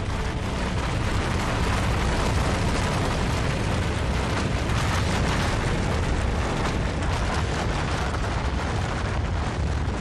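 Snow avalanche pouring down a mountainside: a steady, deep rumbling rush of noise.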